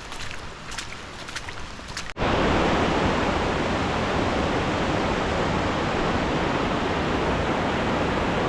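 Light rain pattering with scattered drip taps. About two seconds in, this cuts abruptly to the loud, steady roar of a waterfall's cascade close by.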